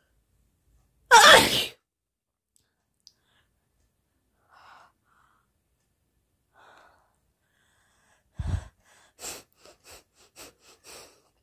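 A woman sneezes once, loudly, about a second in, followed by a couple of faint sniffs. Near the end she blows her nose hard into a paper tissue: one strong blow, then a rapid string of about seven short blasts.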